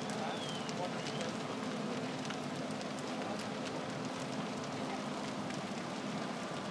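A large building fire crackling with frequent sharp pops as a church burns, over the steady hum of a fire engine running its pump.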